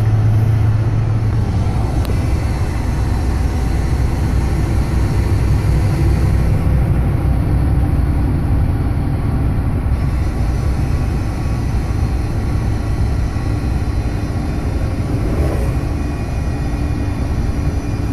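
2011 Ford F-250 driving, its road and drivetrain noise heard from inside the cab with the back window open, with a faint whine that rises and falls in pitch with road speed. The owner suspects a loose heat shield or a bearing.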